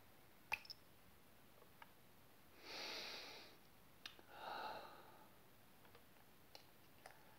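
A man takes a long, deep sniff through his nose at the nozzle of a small glass perfume bottle about three seconds in, then lets out a breathy sigh. A few faint clicks come from the bottle being handled.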